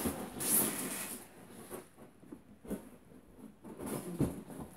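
Quiet scattered rustling with a few soft knocks, the clearest about half a second in and near the end.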